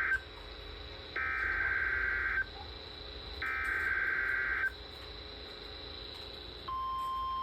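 NOAA Weather Radio EAS/SAME alert header, encoding a severe thunderstorm warning: the end of one burst of buzzy digital data tones, then two more bursts about a second long, each followed by a pause of about a second. About 6.7 seconds in, the steady single-pitch weather radio warning alarm tone begins.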